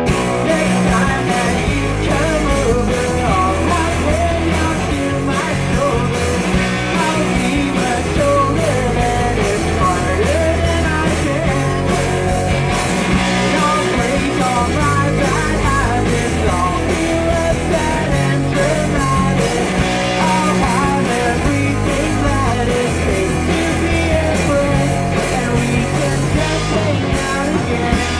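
Live punk-rock band playing a song with electric guitar and bass guitar, kicking in all at once at full volume and running on at a steady driving beat.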